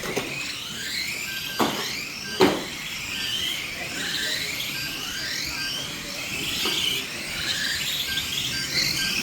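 Several radio-controlled stock cars' motors whining, each rising in pitch again and again as the cars accelerate round the track, with two sharp knocks about one and a half and two and a half seconds in.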